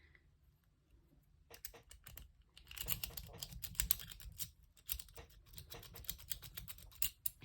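Metal lock pick clicking and scraping against the pins in a padlock's keyway. A few scattered clicks, then a fast, irregular run of small clicks from about a second and a half in until just before the end.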